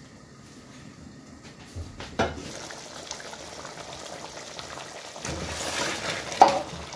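Thick meat-and-bean stew simmering as it reduces, bubbling and popping once the glass pot lid is lifted with a sharp clink about two seconds in. Near the end a spatula stirs through it, the bubbling grows louder, and a sharp knock sounds against the pot.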